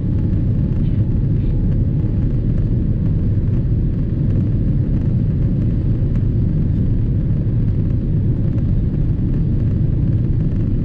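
Steady low cabin rumble of a Boeing 787-10 Dreamliner in flight, heard from a window seat.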